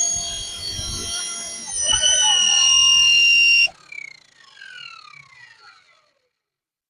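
MD500 RC helicopter's electric motor and rotor head whining at a high pitch, rising a little about two seconds in, then cutting off abruptly; a fainter whine falls in pitch for a couple of seconds as the rotor spins down, then it goes silent.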